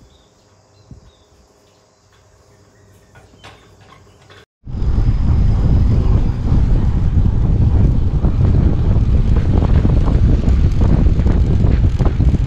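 Loud wind buffeting on an action camera's microphone while riding a road bike, a dense low rumble that starts suddenly about four and a half seconds in after a few faint, quiet seconds.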